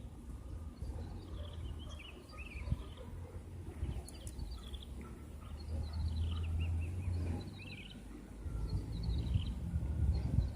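Small birds chirping in many short, high calls, over a steady low rumble that swells twice.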